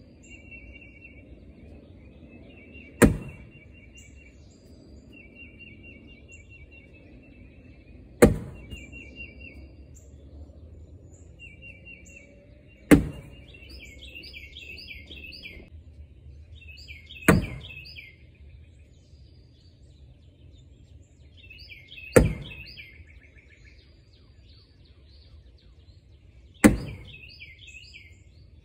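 Cornhole bags landing one at a time on a wooden cornhole board: six sharp thuds about every four to five seconds, each trailing off briefly as the bag slides. Birds chirp and trill throughout.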